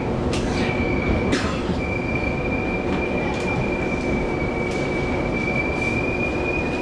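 EMU700 electric commuter train heard from inside the car, the wheels rumbling steadily under a constant high-pitched squeal as the train slows into a station. A few short hissing bursts cut across the squeal.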